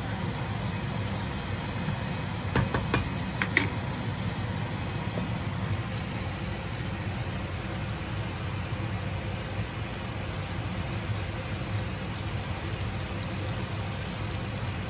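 Flour-dredged fish deep-frying in a pot of hot oil: a steady sizzling and bubbling over a low rumble, with a few sharp clicks about three seconds in.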